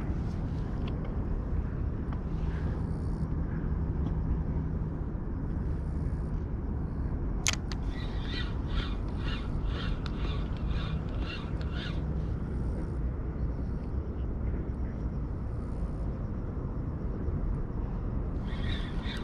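Crows cawing in a quick series of short calls about halfway through, with more calls starting near the end, over a steady low rumble. One sharp click comes just before the first calls.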